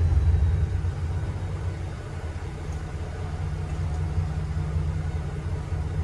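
2023 Ford Ranger Raptor's twin-turbo V6 exhaust in Sport mode, dropping from a rev back to idle over the first couple of seconds, then idling with a steady low rumble.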